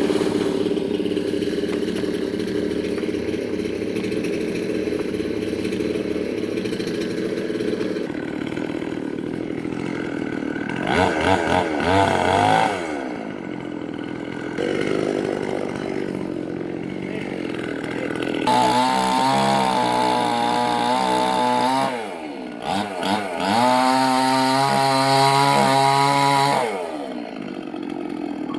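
Two-stroke chainsaw running at low speed, then revved briefly and falling back. After that it is run at full throttle twice, for about three and four seconds, with a short drop between them.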